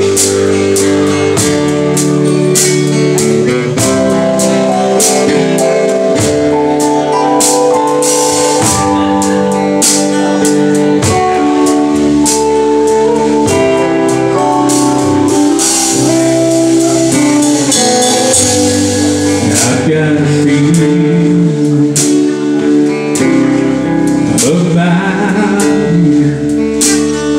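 Live band playing a song: drum kit, electric bass, acoustic guitar and a Nord Electro keyboard holding long chords, with a man singing in the later part.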